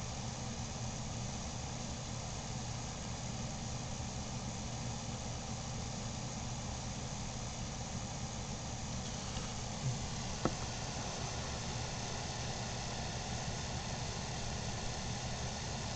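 Steady low mechanical hum of a running motor, with two short knocks about ten seconds in, half a second apart.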